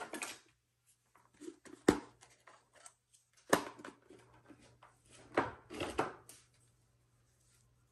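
Small objects handled on a tabletop: a sharp knock about two seconds in, another about three and a half seconds in, and a cluster of clicks and rustles near six seconds, over a faint steady hum.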